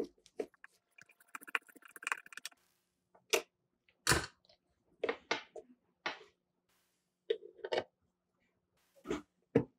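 Handling noise from a toy truck cab's plastic and metal parts: a string of separate clicks, taps and knocks as gloved hands move and fit the pieces, the loudest knock about four seconds in.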